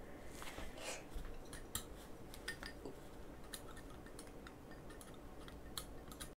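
Faint, scattered light metallic clicks and clinks of a hex driver turning out the small screws of an RC car's differential case, with a short rustle about a second in.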